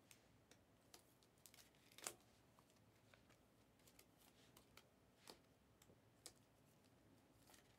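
Near silence, with faint, scattered clicks and rustles from trading cards being handled and slid into clear plastic sleeves; the clearest come about two seconds in and about five seconds in.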